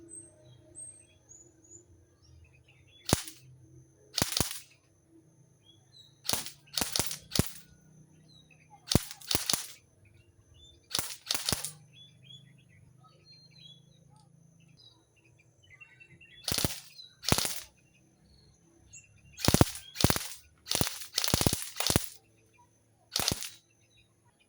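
Toy airsoft gun firing, mixing single semi-auto shots with short full-auto bursts, in irregular groups with pauses of a second or more between them. Faint bird chirps come through in the gaps.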